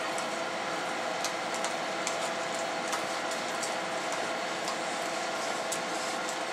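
Steady mechanical hum with a few faint steady tones in it, and scattered faint clicks over the top.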